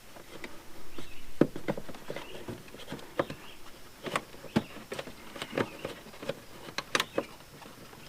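Irregular clicks and light knocks of hand work on a car's battery and the parts around it, loudest once about a second and a half in and again near the end.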